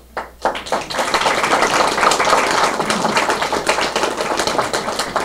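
A roomful of people applauding, the clapping swelling in about half a second in and keeping up as a dense, even patter.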